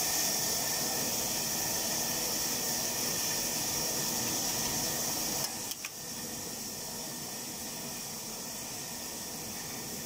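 Steady sizzling hiss of cooking in a pan. It drops in level about five and a half seconds in, with a brief click, then carries on more quietly.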